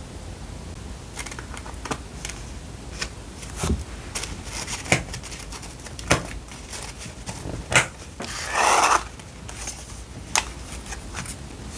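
Paper and stationery being handled during diary decorating: scattered light taps and clicks at uneven intervals, with one longer paper rustle about eight and a half seconds in.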